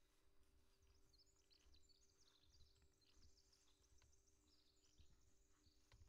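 Faint birdsong in near silence: a songbird sings a long, rapid, jumbled run of high notes starting about a second in, over a faint steady hum and low rumble.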